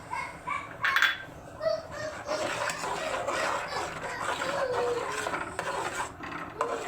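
A spoon scraping and stirring in a cooking pan, with a sharp clack about a second in; a bird's repeated calls end just at the start.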